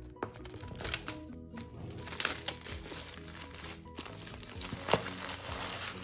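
Background music with crinkling and rustling of product packaging being handled and opened, broken by a few sharp clicks and snaps, the loudest about two and a half and five seconds in.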